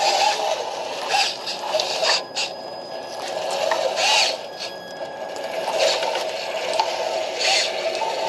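Radio-controlled model bulldozer working: a steady motor whine with a handful of short bursts of scraping and rattling.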